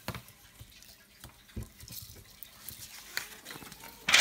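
Green slime being squeezed and squished by hand, a string of small wet clicks and pops, with one louder burst near the end.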